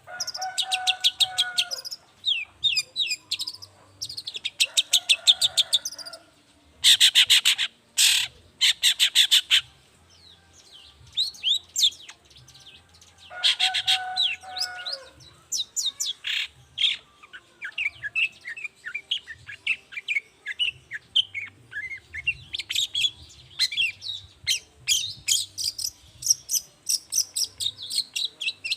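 Long-tailed shrike singing: separate bursts of fast, rapidly repeated harsh notes, some with a lower rasping tone. From about halfway it turns into a long, unbroken run of quick sliding chirps.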